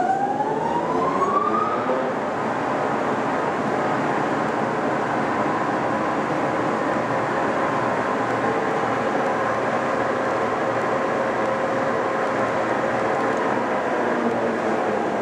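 LeBlond 31 x 108 engine lathe running under power: the whine of its headstock drive rises over the first two seconds as the spindle comes up to speed, then holds steady under a machinery hum.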